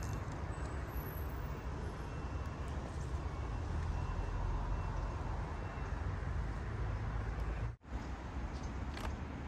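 Steady low rumble of city traffic, broken by a split-second gap of silence near the end.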